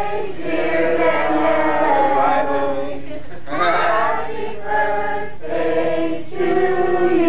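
A group of voices singing together in long held notes, with short breaks between phrases.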